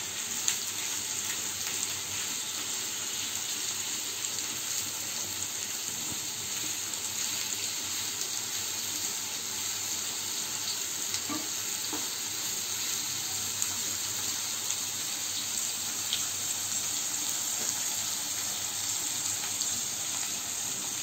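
Sliced onions and papaya pieces frying in hot oil in a non-stick wok on high flame: a steady sizzle, the onions being browned until golden.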